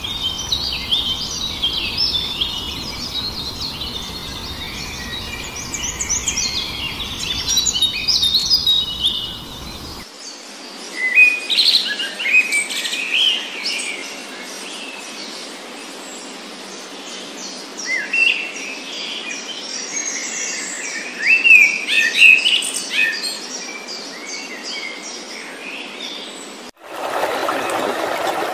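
Several wild birds chirping and singing in quick, short notes, with the mix changing abruptly about a third of the way in. Near the end it cuts to a steady rush of water.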